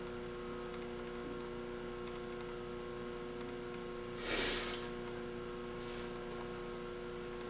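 Steady electrical mains hum in the recording, with one short, noisy breath from a man about four seconds in.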